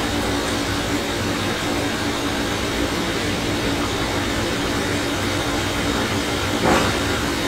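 Steady background hiss with a low hum, unchanging throughout, and a brief soft rush of noise shortly before the end.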